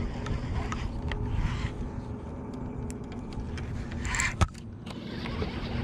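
A baitcasting rod being cast: about four seconds in, a short rushing swish that ends in one sharp click. A steady low rumble and a few faint clicks run underneath.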